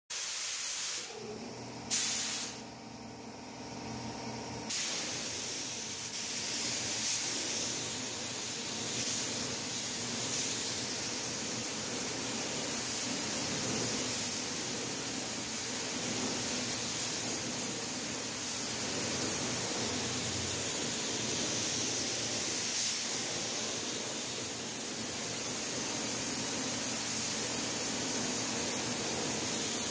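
Steady hissing noise with a faint hum beneath it, broken by a few abrupt jumps in level in the first five seconds and then even.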